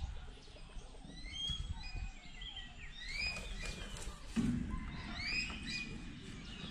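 Birds calling: many short chirps and whistled notes that glide up and down, over a low outdoor rumble, with a brief low sound about four seconds in.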